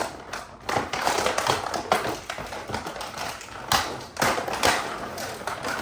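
Toy food pieces clicking and clattering against each other and the toy as they are taken out and handled, a quick irregular run of taps and knocks.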